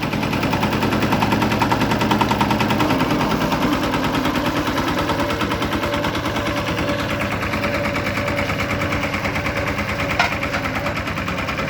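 Road roller's engine running with a fast, even chugging throughout. A brief sharp, higher sound cuts in about ten seconds in.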